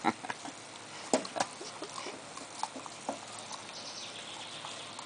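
Two dogs, a cocker spaniel and a cocker–lab mix, gnawing and crunching kernels off a cooked corn cob, with irregular wet crunches and smacks. The loudest crunches come at the start and again about a second in.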